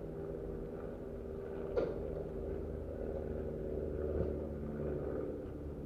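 Steady low motor hum, with two short sharp clicks about two and a half seconds apart.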